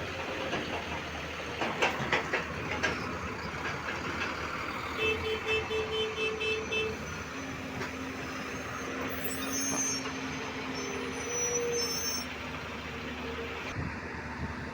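Excavator working: the diesel engine runs steadily under a few sharp metallic clanks near the start. About five seconds in comes a rapid beeping, about four beeps a second for two seconds, like a machine's warning alarm.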